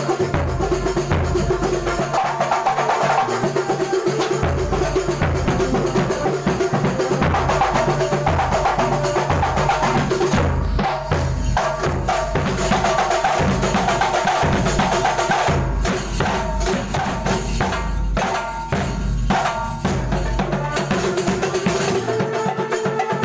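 Kuntulan ensemble playing: hand-struck frame drums and a deep bass drum in a dense, steady rhythm, with a pitched melodic line above them.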